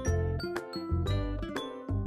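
Background music: a light tune of short pitched notes over a low beat about twice a second.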